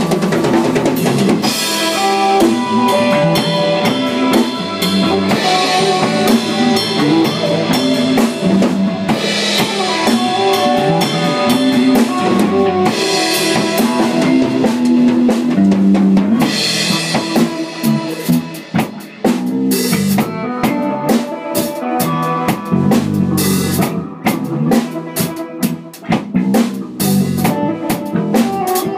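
Three-piece band jamming instrumentally: a drum kit with cymbal crashes every few seconds, over sustained pitched instrument notes.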